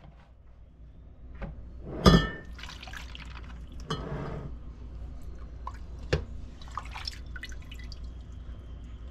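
Sorrel drink being strained: a glass measuring cup scoops liquid from a pot and pours it into a plastic colander, with pouring and dripping. A sharp clunk about two seconds in, likely glass knocking the pot, is the loudest sound, and a lighter knock follows about six seconds in.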